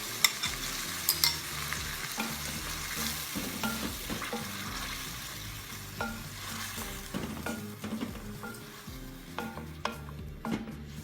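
Yogurt and green chillies sizzling in hot oil with fried onions in a pot, stirred with a spoon that clicks and scrapes against the pot. The sizzling dies down near the end.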